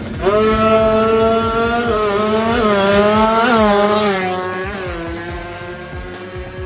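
Drag-racing motorcycle engine running at high revs, steady at first, then blipped up and down several times around the middle. It gets gradually quieter over the last couple of seconds.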